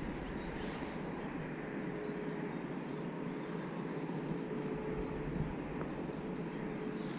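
Small birds chirping and singing, with a short rapid trill about three and a half seconds in, over a steady outdoor hush. A faint steady hum runs underneath.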